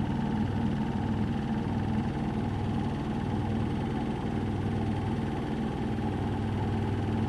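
Samsung Ecobubble washing machine with a digital inverter motor, its drum in a high-speed spin: a steady hum with a low, even drone.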